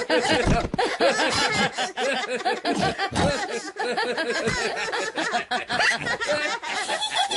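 Several cartoon characters laughing together in a long stretch of overlapping laughter.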